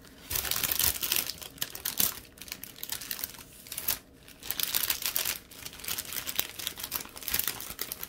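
Thin plastic crinkling and rustling in irregular bursts as hands handle it, with a few small clicks.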